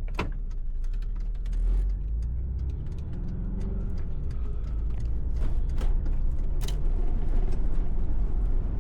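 Cabin sound of a 1991 Volkswagen Vanagon Syncro driving: steady engine and road rumble with scattered clicks and rattles. The engine note rises as it pulls away after the turn, and the sound grows louder toward the end.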